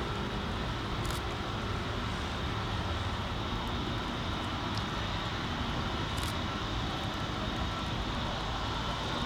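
Airbus A320neo jet engines running steadily, an even rumble and hiss with a faint steady whine.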